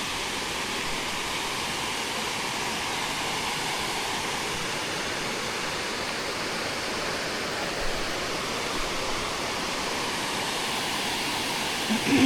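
Waterfall rushing steadily, a powerful, continuous roar of falling water.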